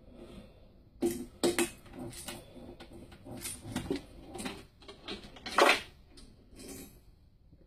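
Homemade cement-block wrist roller clattering as it is worked: a string of irregular sharp knocks and metallic rattles from the hand-turned metal bar and its wooden frame, the loudest a little over halfway through.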